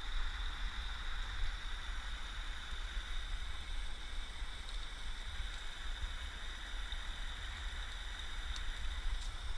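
Steady rushing of water at a spillway, an even hiss with a low rumble underneath.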